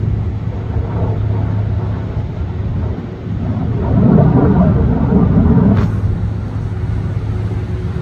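Military jet aircraft flying overhead: a loud, steady engine rumble that swells about three and a half seconds in and eases off again near six seconds.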